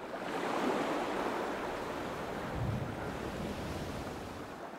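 Rough sea: waves surging and wind rushing, fading in at the start, with a heavier low surge just under three seconds in, then slowly dying away.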